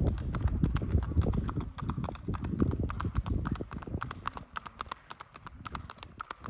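A horse's hooves striking asphalt in a quick, even clip-clop rhythm, with a low rumble under the first half. The hoofbeats grow fainter near the end.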